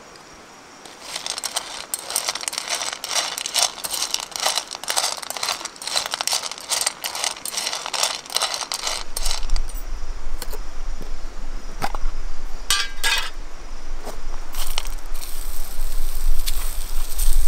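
Small stones rattling and clinking against each other and the steel of a frying pan as they are moved about over a campfire to heat them for cooking. The dense clatter runs from about a second in until about nine seconds, then gives way to a few scattered knocks. A low rumble sets in from about nine seconds.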